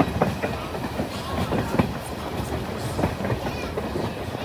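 Train cars rolling along the track with a steady low rumble and irregular clacks and knocks as the wheels pass over rail joints.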